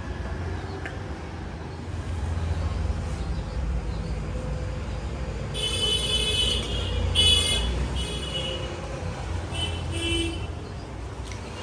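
Steady rumble of street traffic. A vehicle horn honks in several short blasts around the middle of the stretch.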